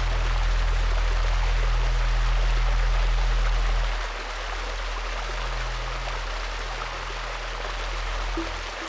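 Running water of a stream, a steady rushing, under a low sustained musical drone that drops in level about four seconds in.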